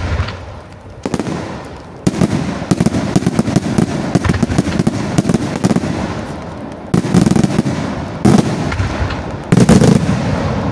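Aerial fireworks shells bursting overhead in a rapid, dense barrage of bangs and crackles. It is quieter for the first second or two, then the bursts come thick and fast, with the heaviest bangs about two-thirds through and near the end.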